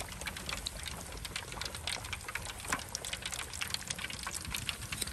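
Pork belly deep-frying in hot oil in a disposable aluminum tray: steady sizzling with dense rapid crackles and pops over a low rumble, as the skin crisps.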